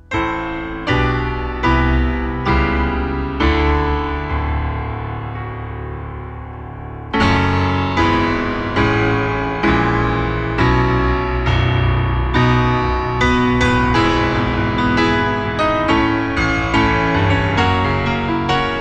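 Background piano music: chords struck one after another, one left ringing and fading for a few seconds, then chords again at a steady pace.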